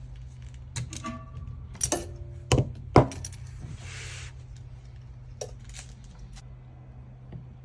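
Metal parts clinking and knocking together, a handful of sharp strikes with short ringing tones in the first three seconds, followed by a brief hiss and a few lighter clicks.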